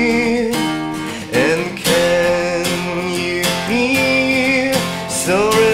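Acoustic guitar strummed in a slow ballad, with a man's voice singing long held notes over it.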